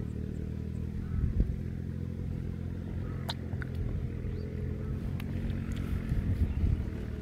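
Steady drone of an engine running, with a few faint clicks.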